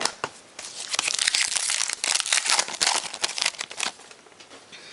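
Wrapper of a trading-card pack crinkling and tearing as the pack is opened, a dense crackle lasting about three seconds before dying down near the end.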